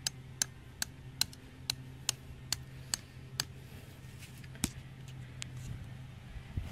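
A metal tent stake being tapped into the ground: light, sharp taps about two and a half a second, then a few scattered ones with a heavier knock near the middle. A steady low hum runs underneath.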